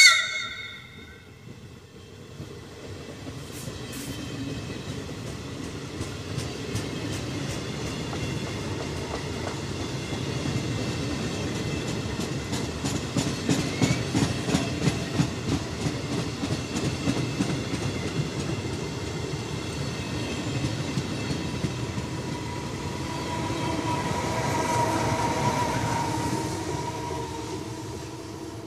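Italian passenger train passing at speed. It opens with a short, loud horn blast, then comes a rolling rumble with a regular clickety-clack of wheels over rail joints. Near the end a steady whine swells as the rear of the train goes by, then the sound fades away.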